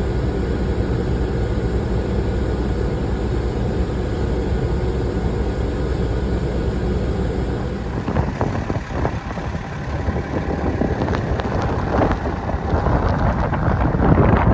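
Wind in a snowstorm: a steady low rumble that turns gusty about halfway through, buffeting the microphone in uneven blasts.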